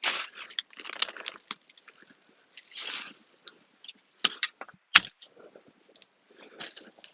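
Hands digging through the soil of a potato container to harvest it, scraping and crunching in short irregular bursts, with two sharp knocks about four and five seconds in.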